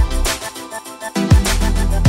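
Electronic dance music: heavy kick drums that drop in pitch, a deep sustained bass that cuts out briefly and comes back about a second in, over a busy high rhythm.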